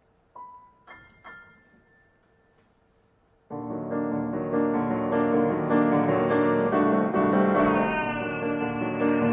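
Piano accompaniment: a few sparse, separate notes in the first second or so, a short near-silent pause, then a sudden loud, dense passage of many sustained notes from about three and a half seconds in.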